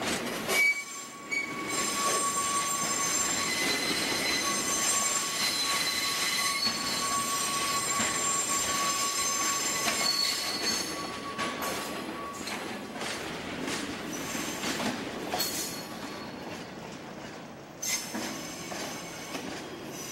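Railway oil tank wagons rolling slowly through the yard during shunting, their wheels squealing with several high steady tones against the rails. The squeal thins out after about twelve seconds, leaving the rolling rumble and occasional clicks over rail joints.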